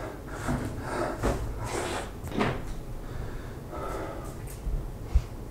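Cloth rustling as a T-shirt is pulled on over the head, then a couple of short sprays from a cologne bottle, and a soft thump near the end.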